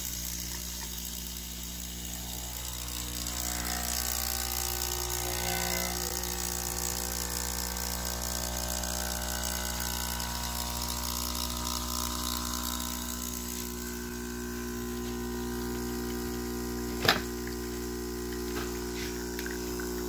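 The DeLonghi EC155's newly fitted vibratory pump buzzing steadily as it pushes water through for a shot of espresso. A single sharp click sounds about 17 seconds in.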